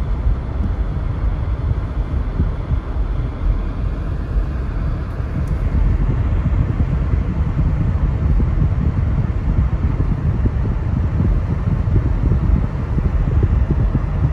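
A car driving on a rain-wet road, heard from inside the cabin: a steady, low rumble of engine and tyres on the pavement.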